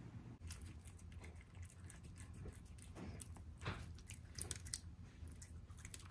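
A cat chewing and licking a piece of chicken close to the microphone: quick, irregular, soft wet clicks and smacks, faint.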